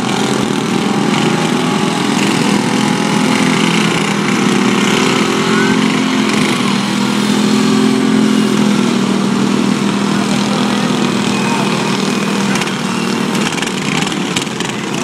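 Several riding lawn mower engines running at once, their pitches shifting as the mowers drive around the arena, with a run of knocks near the end.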